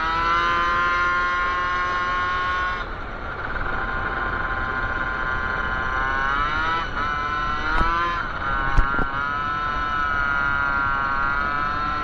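1978 Honda Hobbit moped's small two-stroke engine, fitted with a Stage 6 Racing R/T MK1 kit, running high-pitched under way, with wind noise on the microphone. Its pitch drops about three seconds in, climbs again over the next few seconds, then dips briefly twice. Two sharp knocks a little past the middle are the loudest moments.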